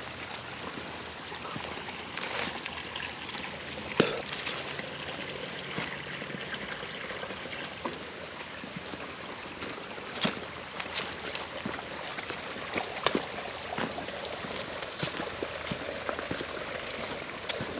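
A small mountain creek running steadily, with scattered crunches and snaps of footsteps through dry leaves and twigs. A thin, steady high tone sounds through the first half.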